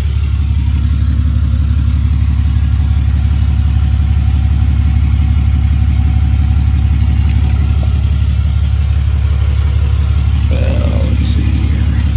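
Truck engine idling steadily while it warms up, a loud, even low hum.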